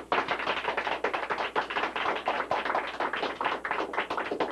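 Audience applauding, a dense run of many hands clapping that thins out near the end.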